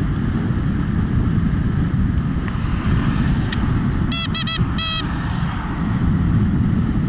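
Steady wind rumble on the microphone with road noise from a moving electric scooter. Three short high chirps come about four seconds in.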